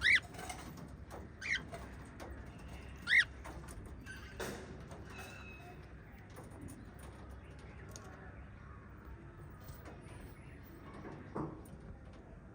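Small pet parrots chirping: three loud, short, sharp calls in the first few seconds, then quieter scattered chirps and a couple of soft knocks.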